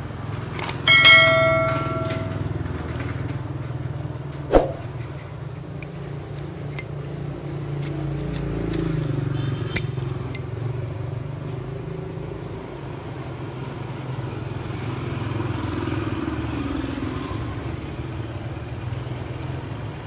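Steady rumble of road traffic, swelling now and then as vehicles pass, with a bright metallic ding that rings for about a second near the start and a few light clicks in the first half.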